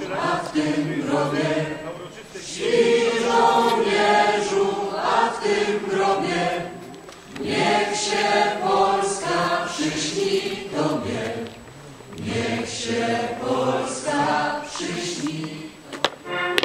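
A choir singing a song in long phrases with short breaths between them. Near the end a sharp tap is heard.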